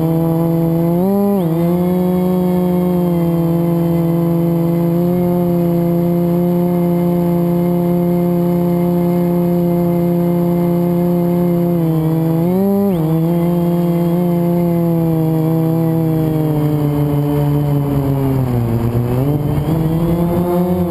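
FPV quadcopter's motors whining at a steady pitch, with brief throttle blips about a second in and again near the middle, and a drop and rise in pitch near the end.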